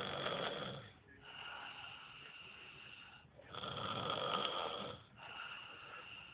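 A sleeping person snoring: two loud snores, one at the start and one about three and a half seconds later, with quieter, steadier breathing sounds between them.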